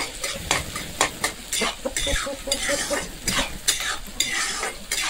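Onions and green chillies frying in oil in a heavy-bottomed kadhai, sizzling, while they are stirred in quick, repeated strokes that scrape and knock the utensil against the pan.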